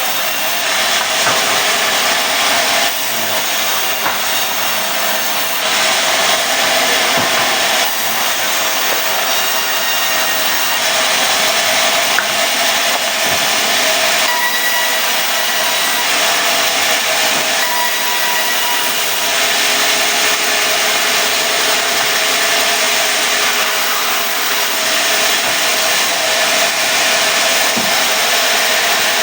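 Sawmill saw cutting mahogany into planks: a loud, continuous whine and rasp of the blade running through the wood.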